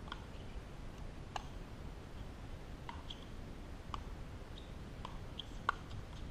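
Pickleball rally: the short hollow pock of paddles striking a plastic ball, about five sharp hits roughly a second apart, the loudest near the end, over a steady low rumble.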